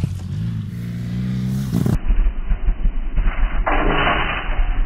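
BMW R 1200 GS Adventure's boxer-twin engine revving up and down under throttle on loose ground. About four seconds in, a short burst of gravel spraying from the rear tyre as the bike turns.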